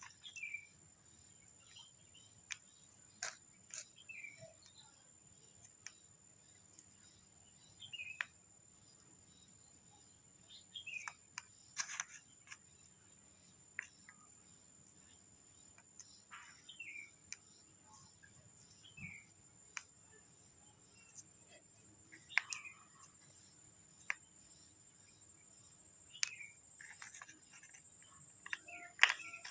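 Scattered light clicks and taps of plastic kinetic-sand spoons and molds being handled, over a steady high-pitched insect drone.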